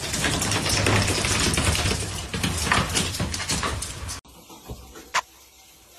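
Rapid scrabbling and clattering of a cat's claws and body on a tile floor as it leaps and twists. It cuts off suddenly about four seconds in, and a single sharp click follows about a second later.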